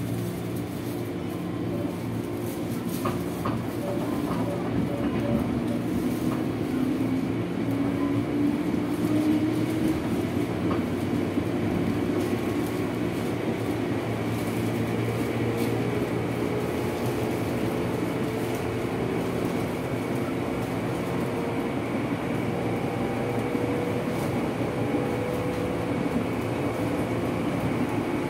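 Interior ride sound of a 205-series electric commuter train's motor car running at speed. The traction-motor whine climbs slowly in pitch as the train gathers speed, over a steady rumble of wheels on the rails.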